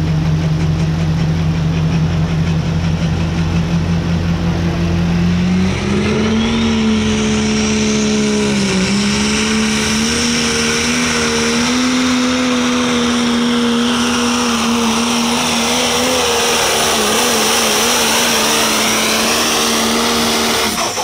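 Pro Stock pulling tractor's turbocharged diesel engine at full throttle on a pull, a steady high note that steps up in pitch about six seconds in and holds there with a high whine rising above it. It drops off right at the end as the run finishes.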